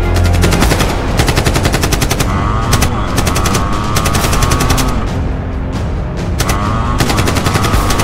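Rapid automatic machine-gun fire in three long bursts over dramatic background music.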